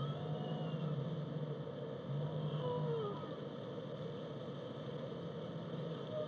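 Underwater whale-song recording: a steady low hum and water hiss with a few faint whale calls gliding in pitch, one of them falling about halfway through.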